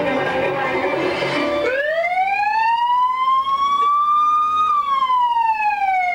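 Music that cuts off about one and a half seconds in, giving way to a single siren-like tone that rises slowly for about three seconds, then turns and falls steadily.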